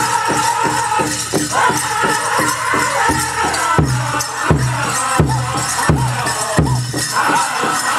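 Powwow drum group singing a chicken dance song over a big drum, with the dancers' bells jingling. A steady beat of two to three strokes a second gives way near the middle to five heavier, slower beats, then picks up again.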